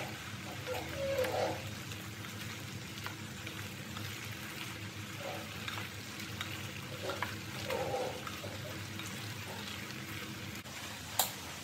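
Wooden spatula stirring chunks of fruit and grated coconut in liquid in a clay pot: wet sloshing and squelching over a steady hiss, louder about a second in and again around eight seconds in, with one sharp click near the end.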